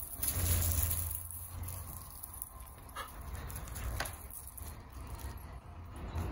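Dogs scuffling and chasing each other in play on gravel, with a couple of short sharp sounds about three and four seconds in, over a low steady rumble.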